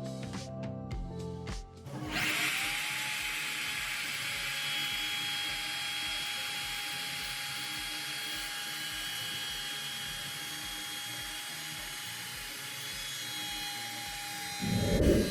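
Music with a beat, then about two seconds in an electric power tool starts, spins up and runs steadily with a constant whine. A short, louder low rumble comes near the end.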